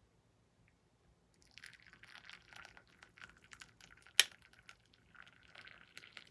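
Hibiscus tea being poured, a splashing trickle that starts about a second in and runs for about five seconds. One sharp clink, the loudest sound, comes partway through.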